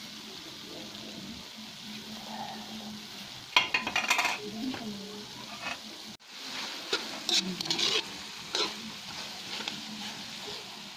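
Metal spoon stirring and scraping laing (taro leaves in coconut milk, with pork and chilies) around a metal wok, over a steady sizzle of the dish frying in its rendered oil. The scraping comes in clusters of short strokes, about four seconds in and again from about seven to nine seconds.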